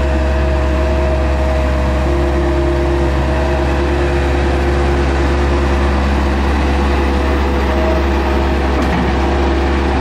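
Bobcat S175 skid-steer loader's diesel engine running steadily as the machine drives, a deep drone with a constant whine over it.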